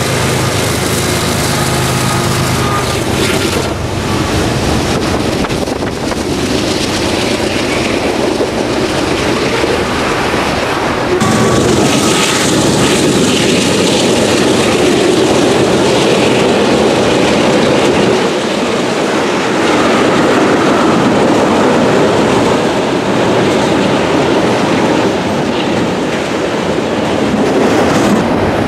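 Diesel-electric freight locomotives passing close by with their engines running, giving way to the steady rumble and clatter of freight cars rolling over the rails. About eleven seconds in the sound cuts to a louder, closer rumble of the cars.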